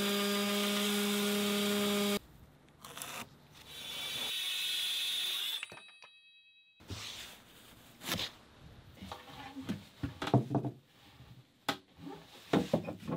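Makita random orbital sander running steadily on plywood, cutting off about two seconds in. A few seconds later a small circular saw briefly cuts through a wooden block, followed by scattered knocks and clatter of wooden blocks being handled and set in place.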